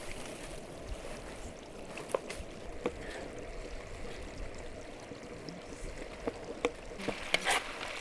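Steady outdoor background noise with scattered light clicks and taps, and a few sharper clicks near the end.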